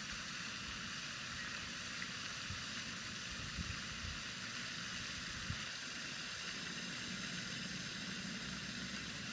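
A steady, even hiss that holds without change, with a couple of faint knocks.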